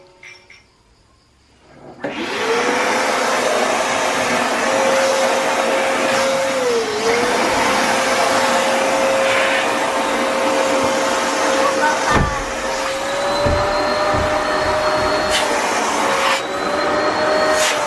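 VO.TEMM vacuum cleaner switched on about two seconds in, its motor spinning up to a steady whine over a loud rush of air. The pitch dips briefly once, and a few low knocks come in the second half.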